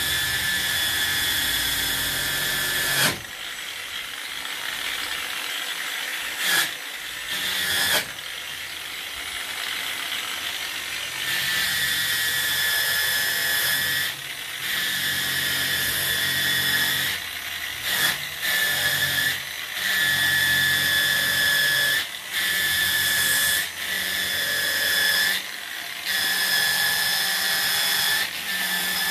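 Angle grinder with a wire brush attachment running against a pine board, brushing out the soft grain so the hard grain stands up in an aged texture. Its high, steady whine runs quieter for several seconds after about three seconds in, then drops away briefly and comes back again and again.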